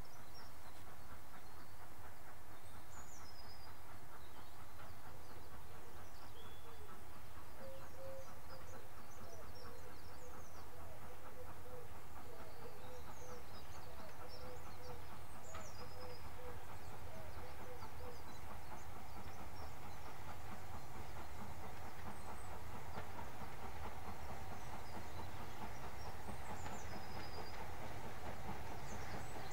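A Stanier 8F 2-8-0 steam locomotive hauling a train of loose-coupled mineral wagons as it approaches, running steadily with the wheels and wagons rattling on the track. Birds chirp throughout.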